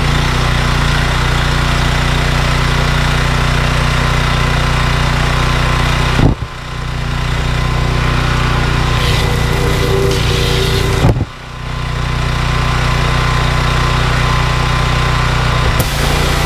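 Honda GX390 petrol engine on a belt-driven pressure washer running steadily just after starting, with the choke on and the throttle up. Twice, about six and eleven seconds in, the sound cuts off sharply with a click and builds back over a second or so.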